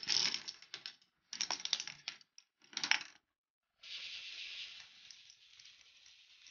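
K'nex ball machine running: plastic parts clicking and rattling as balls roll along the tracks and the lift mechanisms ratchet. There are short bursts of clatter that stop abruptly, then from about four seconds in a steadier, quieter patter of fine clicks.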